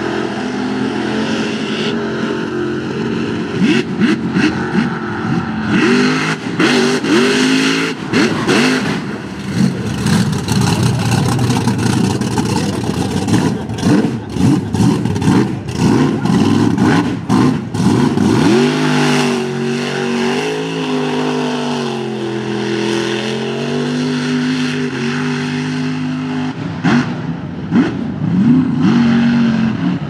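Supercharged 540 cubic-inch big-block V8 on alcohol with a 14-71 blower, revving hard again and again as the mud truck drives through the bog. About two-thirds of the way through it holds a steadier, lower speed for several seconds, then revs up again near the end.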